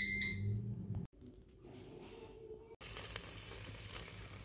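Ninja dual-zone air fryer giving a short electronic beep as it is started, over the low hum of its fan. Near the end, freshly air-fried lamb chops sizzle softly in the basket.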